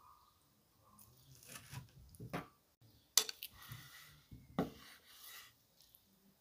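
Chef's knife slicing through cooked meat and knocking against a wooden cutting board in several separate strokes, with a sharp click about three seconds in.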